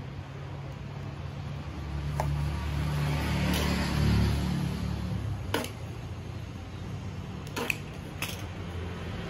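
Low engine rumble of a motor vehicle nearby, swelling a couple of seconds in and easing off again, with a few short sharp clicks.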